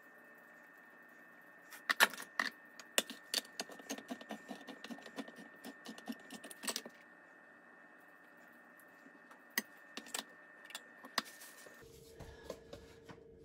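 Handheld manual can opener cranked around the rim of a food can, its cutting wheel and gears giving a quick run of metallic clicks, followed by a few scattered clicks and knocks.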